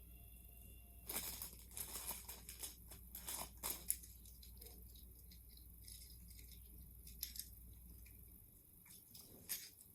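Plastic packaging being handled: a quick run of crinkling and rattling clicks starting about a second in and lasting about three seconds, then a couple of single clicks near the end. The sound is faint.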